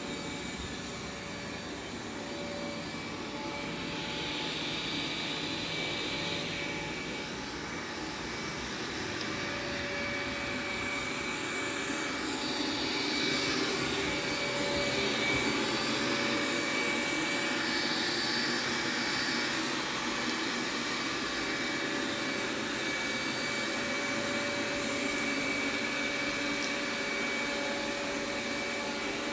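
Xiaomi X10 robot vacuum running: a steady whirring hum with a thin, constant high whine, growing slightly louder partway through.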